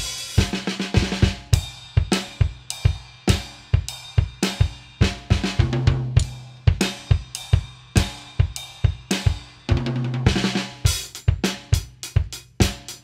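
Acoustic drum kit played with sticks: a steady groove of bass drum, snare and cymbals, with a low drum ringing out twice along the way and a run of quicker strokes near the end.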